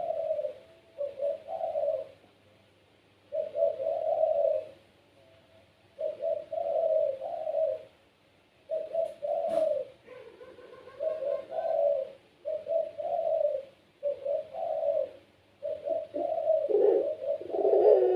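Puter pelung dove (domestic ringneck dove) cooing in a long run of deep, repeated phrases with short gaps between them, about a dozen in all. A single sharp click sounds about halfway through.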